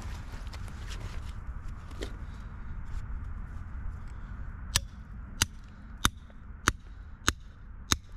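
Rock hammer striking stone six times at an even pace, each blow a sharp metallic clink, starting about halfway through. Before the blows, faint clicks of loose rock fragments being handled.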